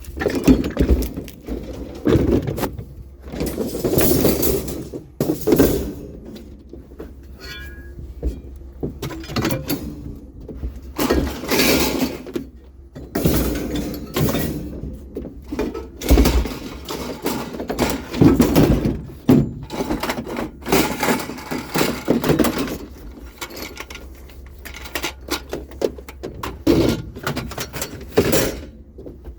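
Scrap metal being handled and loaded: a run of irregular clanks, bangs and rattles.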